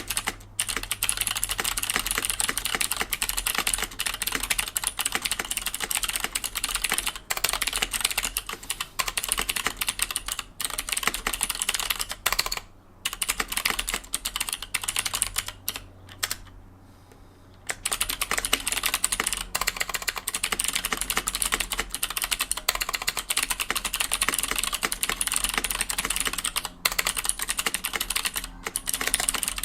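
Typing on a KBD75 mechanical keyboard with an aluminium plate, Gatistotle switches on the letter keys and Fosen switches on the modifiers: a fast, steady run of keystroke clacks with a couple of short pauses near the middle.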